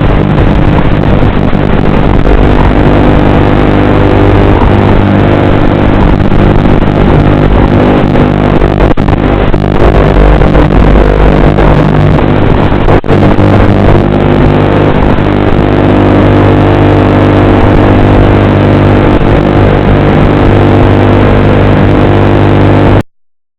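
Small FPV drone's electric motors and propellers buzzing steadily and very loudly, close to the microphone, with a brief dip about halfway through. The sound cuts off abruptly near the end.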